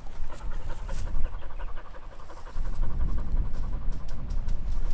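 A hunting dog panting rapidly close to the microphone, a quick even rhythm of several breaths a second.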